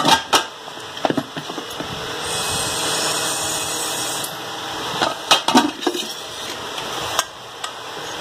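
Aluminium pressure cooker lid being handled and turned over, with scattered knocks and clatter of metal. A steady hiss runs for about two seconds in the middle.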